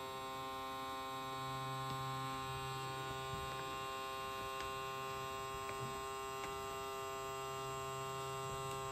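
Handheld electric vacuum pump running on the valve of a resealable zip bag, drawing the air out of it. A steady electric hum that holds level throughout.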